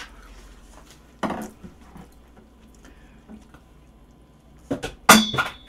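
Drinking through a straw from a glass mug: a short noisy sip about a second in. Near the end come two sharp knocks, and the louder one leaves a brief high ringing tone, like glass clinking against something hard.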